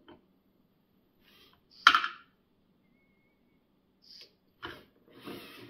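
LEGO robot arm at work, its plastic parts moving. There is one sharp plastic clack about two seconds in, then a few short bursts of rattling and motor noise near the end.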